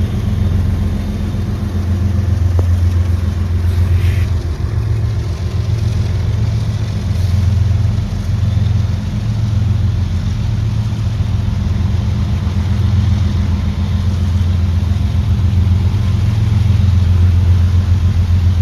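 Intermodal freight train rolling past with a steady, loud low rumble.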